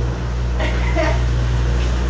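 Steady low mechanical hum of commercial dish-room machinery, with a faint voice in the background.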